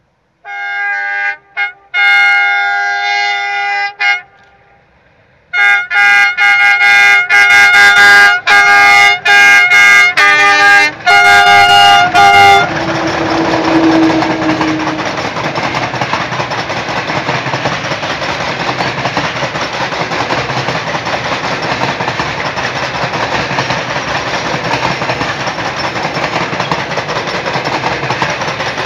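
A loud horn sounds one long blast, then a rapid string of short toots. About twelve seconds in, it gives way to a long freight train of sliding-wall box wagons rolling past, a steady rumble of wheels on rail.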